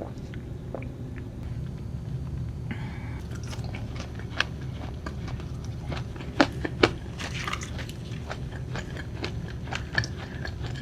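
Close-miked clicks, crackles and crunches from takeout food, over a steady low hum, with two louder sharp knocks about six and a half seconds in.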